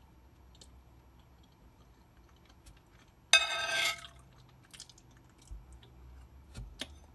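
Close-up chewing of a last mouthful of chocolate cake and custard, soft and wet with small clicks. About three seconds in comes one loud, brief high-pitched squeak-like sound.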